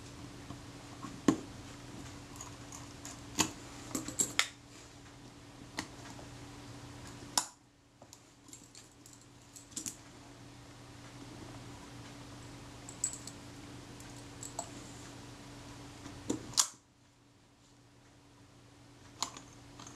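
Scattered small clicks and taps of a jeweller's screwdriver working the base plate screws of a Kodak Retina Reflex IV's metal body, with a faint steady hum underneath.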